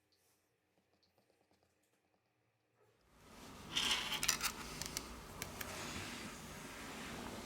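Light clicks and scratches of small phone parts and tools being handled during reassembly. A steady hiss sets in about three seconds in, and a cluster of sharp clicks follows about a second later.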